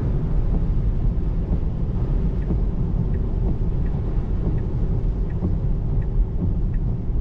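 Steady low road and tyre rumble inside the cabin of an electric Tesla Model 3 driving on wet roads in the rain. Faint light ticks come about every half second from a little past two seconds in.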